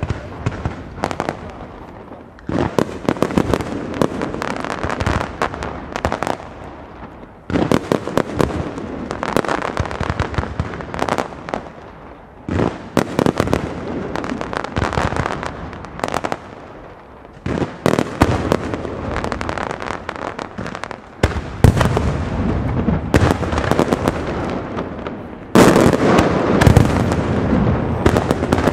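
Castillo aerial firework display by Pirotecnia Alpujarrena: shells bursting in a continuous barrage of bangs and crackles, surging into louder volleys every four to five seconds.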